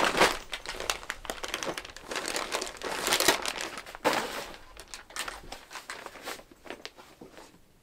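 Rustling and crinkling of a black fabric drawstring bag being handed over and handled, in irregular bursts that are densest over the first five seconds and then thin out and grow quieter.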